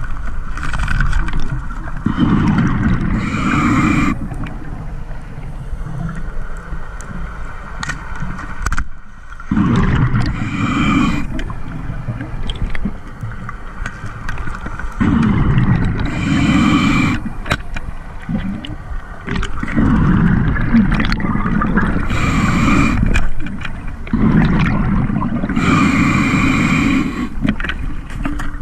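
Scuba diver breathing underwater through a regulator: a short hissing inhale, then a longer low rumble of exhaled bubbles, about five breaths repeating roughly every six seconds.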